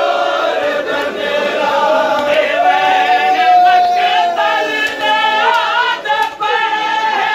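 A group of men chanting a noha, a Shia lament, together in unison behind a lead reciter. About two and a half seconds in, the voices hold one long note.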